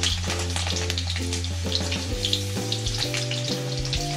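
Chopped garlic sizzling in hot oil in a kadhai, with many small scattered crackles.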